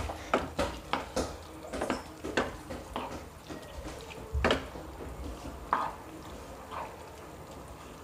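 Spatula knocking and scraping against a non-stick frying pan while stirring fried chicken pieces and onions in thick sauce. A quick run of taps, about three a second, thins out after about three seconds, with one heavier knock about four and a half seconds in.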